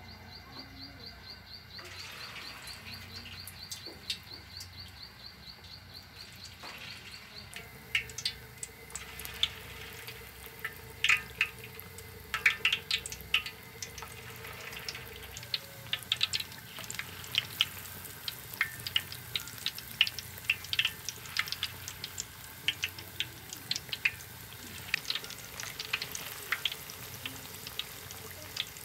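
Batter-coated carrot slices deep-frying in a wok of hot oil: a steady sizzle. Sharp crackles and pops come in about a quarter of the way in as more slices are dropped in.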